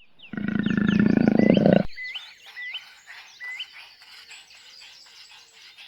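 A big cat gives one low, rasping growl lasting about a second and a half, which cuts off abruptly. Birds chirp in quick, repeated calls during and after it.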